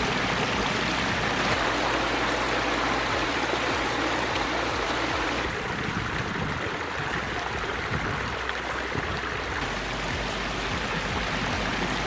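Water from a pondless waterfall cascading over rocks, a steady rushing splash that turns a little duller about halfway through.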